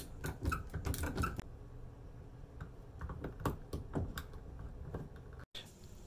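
Small metal clicks and scrapes of a screwdriver working the screws of a wall light switch as it is taken out of its electrical box, with a quick run of clicks in the first second and a half and scattered ones after.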